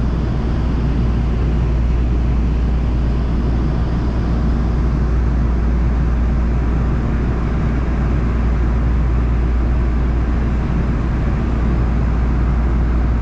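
LA Metro light rail train running at steady speed, a constant low rumble and rolling noise heard from inside the car.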